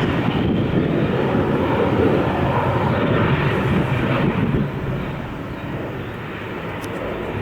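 Harrier jump jet's Pegasus turbofan roaring overhead in a loud, steady rush that eases off about two-thirds of the way through as the jet moves away.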